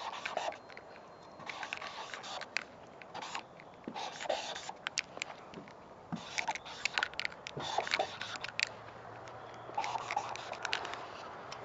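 Wide-tip Molotow Speedflow 15 mm marker scraping across a painted surface as tags are written. The strokes come in short scratchy bursts with brief pauses between them.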